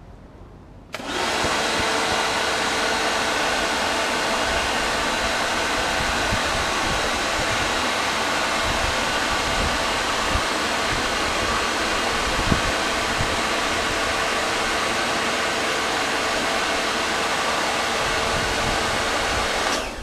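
Karcher K 2.050 electric pressure washer running, its motor and pump starting abruptly about a second in as the trigger gun is pulled, and running steadily while it sprays wash-and-wax detergent with the water, until it cuts off at the end.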